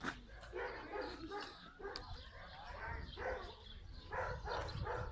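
A dog barking repeatedly in short barks, over a low steady rumble.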